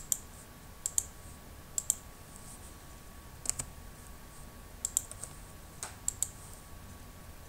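Computer mouse clicks and a few key presses, many coming as quick double clicks, about every second or so, over a faint steady electrical tone.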